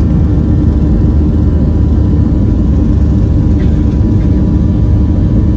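Boeing 737-700's CFM56-7B turbofan engines running at high thrust during the takeoff roll, heard inside the cabin over the wing as a loud, steady, deep rumble with a faint steady whine.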